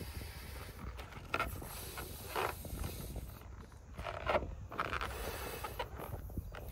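Large latex balloons being handled and rubbed, the rubber giving off short squeaks and creaks several times over a low rumble of wind on the microphone.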